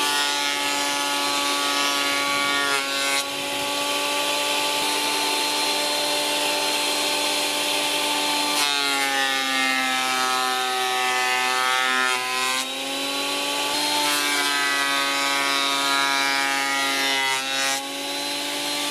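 Parkside PADM 1250 planer-thicknesser running in thicknessing mode, a steady motor whine with the hiss of the cutter block. The pitch drops twice for a few seconds, from about 9 s to 12 s and again from about 14 s to 17 s, as the cutter bites into the board and the motor comes under load.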